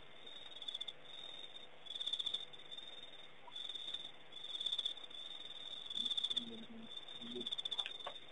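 Night insects trilling: a high, steady-pitched pulsed chirp that repeats about once a second.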